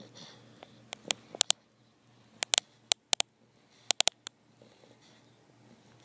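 Sleeping bulldog snoring and snuffling softly through its nose, with a quick scatter of sharp clicks between about one and four seconds in.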